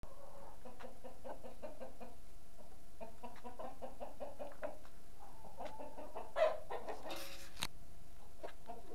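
Chickens clucking in a quick run of short notes, with one louder cluck about six and a half seconds in, followed by a brief rustle and a click.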